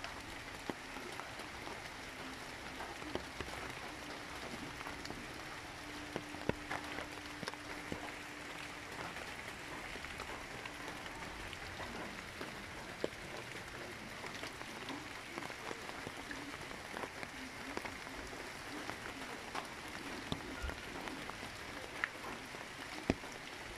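Steady rushing of a muddy river in flood, swollen after heavy rains, with scattered light ticks over it.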